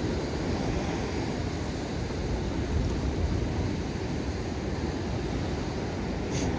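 Ocean surf churning over the rocks below, a steady wash of breaking water, with wind rumbling on the microphone.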